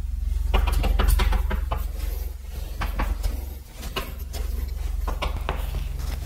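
Writing by hand: a string of short taps and scratchy strokes of the writing tool, over a steady low hum.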